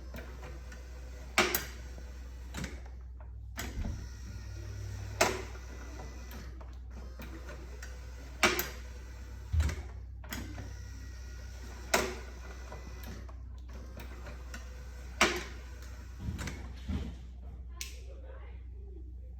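Sharp clicks from a slide-step controller's push switch and relays, five loud ones spaced about three and a half seconds apart with softer clicks between, over a steady low hum.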